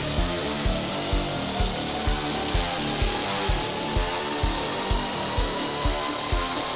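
A continuous loud hiss from a FANUCI 4.0 Pro GenX handheld laser welder at work on steel, over electronic background music with a steady beat of about two thumps a second.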